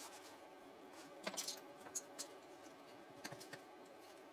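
Faint clicks and small rattles of plastic LEGO Technic pieces being handled and picked out of a loose pile: a cluster of clicks about a second in, a couple of single clicks, and another short cluster a little after three seconds.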